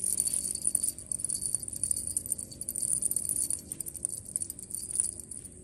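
Small jingle bell on a feather wand cat toy jingling rapidly and unevenly as the toy is waved and swatted; it starts suddenly.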